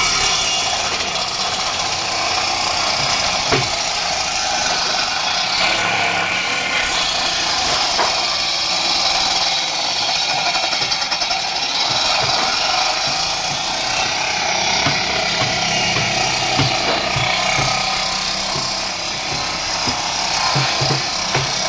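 Bench-mounted circular saw ripping a long reclaimed pallet-wood beam lengthwise, a steady, unbroken cutting noise as the timber is fed through the blade.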